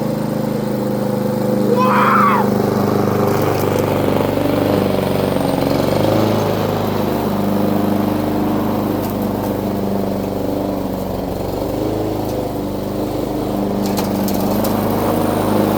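Lawn mower's small engine running steadily, its pitch wavering slightly, with a brief rising squeal about two seconds in.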